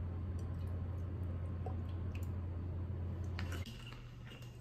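Frozen Sipsmith VJOP gin poured from the bottle over ice cubes in a highball glass. It is a steady, quiet pour that stops about three and a half seconds in.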